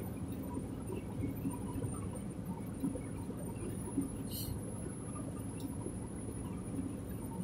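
Steady low drone of a semi truck's engine and tyres heard inside the cab while cruising at highway speed, with one brief click about four seconds in.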